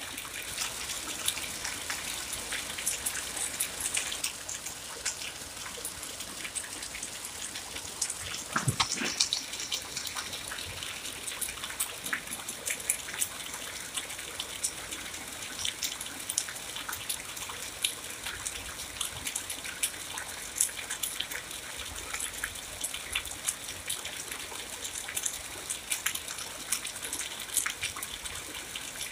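Steady rain falling, with many individual drops ticking sharply close by and one brief louder knock about nine seconds in.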